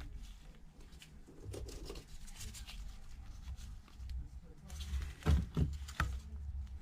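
Handling noises on a workbench: a few sharp clicks and knocks, closely spaced about five to six seconds in, over a low steady hum.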